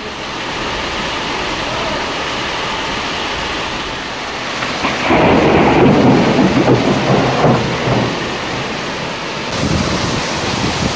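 Steady rain of a thunderstorm, with a loud rolling rumble of thunder about five seconds in that lasts about three seconds. The rain grows heavier near the end.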